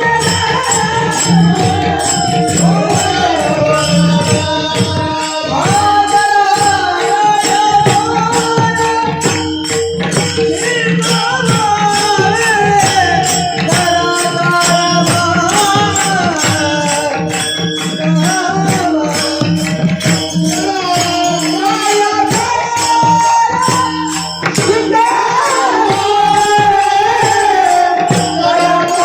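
Marathi kirtan singing: a solo voice sings a devotional abhang melody over steady held accompanying tones and a regular beat of jingling hand percussion.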